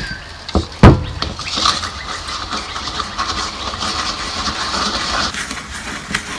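A plastic water bottle is set down on a wooden table with a single loud knock about a second in, then a wooden paddle pop stick stirs wet concrete mix in a plastic cup, a steady gritty scraping with small ticks that stops about a second before the end.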